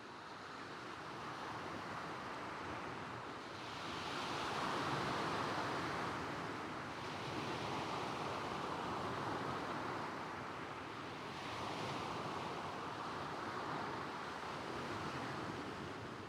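Small waves breaking and washing over a shingle beach of stones, with a soft coastal wind. The wash swells and ebbs every few seconds, loudest a few seconds in.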